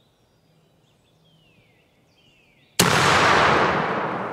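A single shotgun blast about three seconds in, fired at a wild turkey gobbler, with a long rumble that fades slowly through the woods. Before it, only faint bird chirps.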